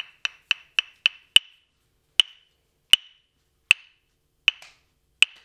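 Aboriginal wooden clapsticks struck together in a rhythm: a quick run of about four strikes a second, then slowing to a steady beat of one strike about every three-quarters of a second.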